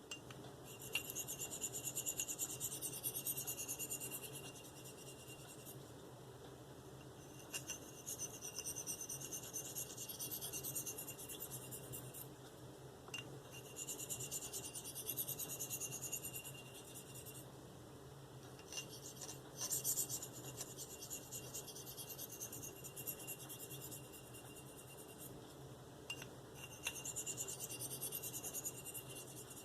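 Steel knife edge drawn across a fine Spyderco ceramic sharpening stone: light, hissing scraping strokes in five spells with short pauses between them, the light passes used to take off the burr.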